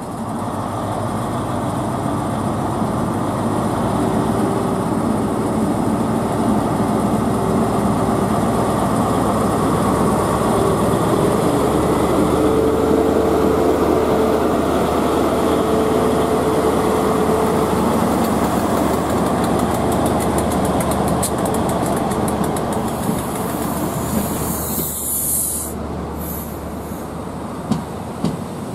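LNER Class 43 HST diesel power car pulling out and passing close by, its engine building up as it moves off. Near the end there is a short burst of hiss, then wheels clicking over rail joints as the coaches pass.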